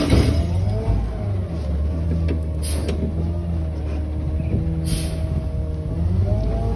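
Garbage truck engine running, a steady low drone with a whine that rises near the end, with a few sharp clanks.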